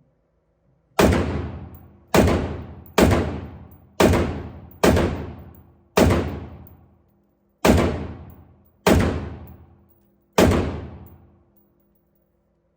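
Colt AR-15 rifle fired nine times in semi-automatic single shots, at an uneven pace of about one a second. Each shot has a long echoing decay.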